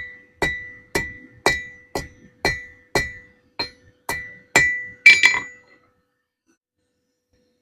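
Hammer striking hot chisel steel on an anvil while forging it, about two ringing blows a second. About five seconds in comes a quick run of three louder blows, then the hammering stops.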